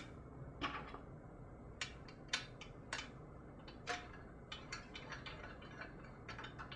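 Light metallic clicks and taps, about a dozen scattered irregularly, as a doumbek's tuning bolt and peg are fitted back into the drum's hardware by hand.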